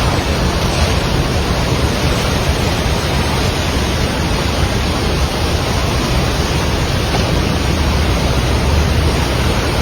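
Rushing floodwater: a loud, steady noise of fast-flowing water with no breaks.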